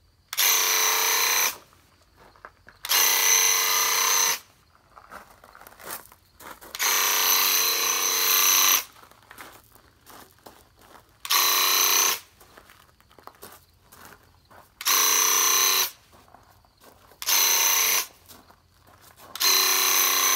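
Graco Ultramax cordless handheld airless paint sprayer's pump buzzing in on-off bursts as the trigger is pulled and released. There are seven spray passes of about one to two seconds each, with short pauses between them.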